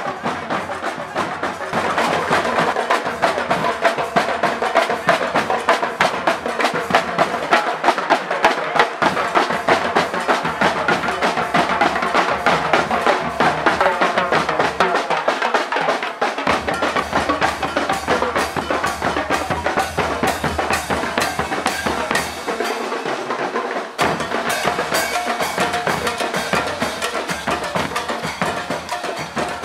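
Marching drum corps playing a fast, steady beat on bass drums, snare drums and cymbals.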